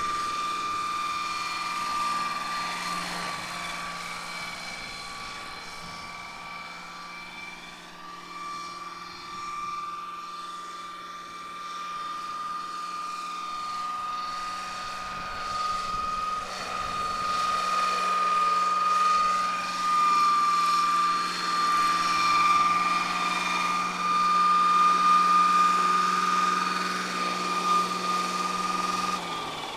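Large-scale radio-controlled Boeing CH-47 Chinook tandem-rotor model helicopter flying, with a steady high whine from its drive over a low rotor hum. It is fainter while the helicopter is high up and grows louder as it comes in and lands. Just before the end the low rotor hum starts to drop in pitch as it powers down.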